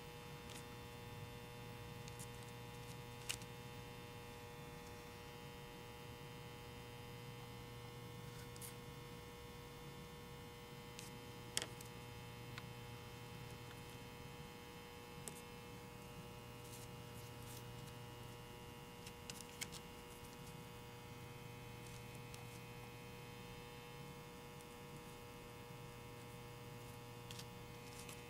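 Steady electrical mains hum with several fixed tones above it, and a few faint clicks and taps as small polymer-clay pieces are handled on a tabletop.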